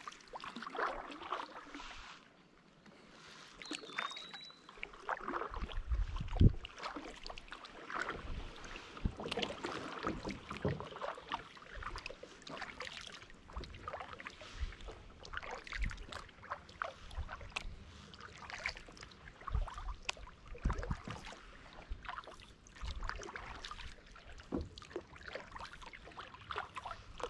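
Kayak paddling: the paddle blades dipping and splashing with water dripping between strokes, plus an occasional louder thump, loudest about six seconds in.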